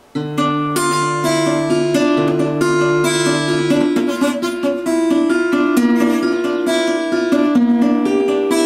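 Guitar playing an introduction, picking the chords note by note in an arpeggio pattern. The notes ring over one another and begin just after the start.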